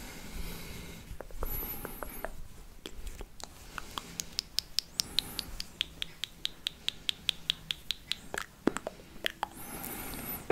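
Fingers rubbing and picking at a dry grape stem close to the microphone: scattered scratches and clicks, then a run of crisp ticks at about five a second from around four to eight seconds in.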